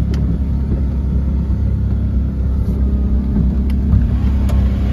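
An off-road SUV's engine running steadily under load through deep mud, heard from inside the cabin as a loud low rumble. A few sharp taps of flung mud hit the windscreen, one near the start and two more late on.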